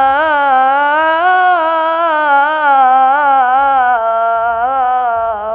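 A boy's voice singing the adhan, the Islamic call to prayer, through a microphone. He draws out the end of "hayya 'ala as-salah" in one long ornamented melisma that wavers and slowly falls in pitch, and stops at the very end.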